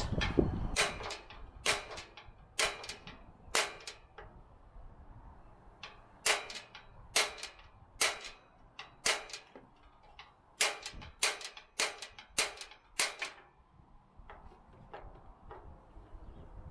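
Push-button piezo igniter on a Blackstone Adventure Ready propane camp griddle and burner, pressed over and over: a dozen or more sharp clicks about one a second, fainter near the end. The burner does not light; no spark is reaching the burner, where the igniter electrode looks bent back.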